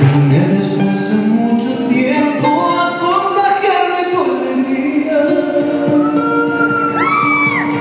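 Live song: a man singing a melody with held notes over a charango and a sustained accompanying tone.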